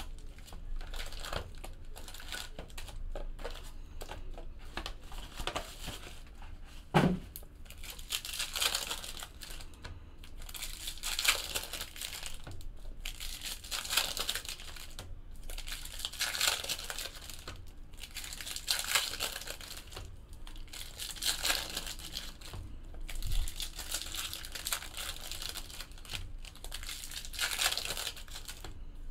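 Foil trading-card pack wrappers from a Topps Chrome Football box crinkling and tearing as they are ripped open by hand, in bursts every second or two.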